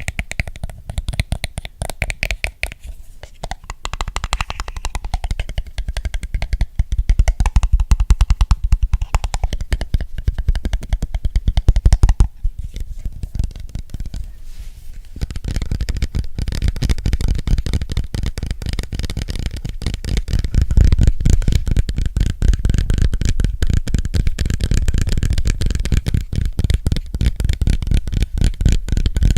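Fast fingertip and fingernail tapping on an object held close to the microphone, a dense, rapid patter of many taps a second. A few seconds past halfway the tapping turns deeper and fuller.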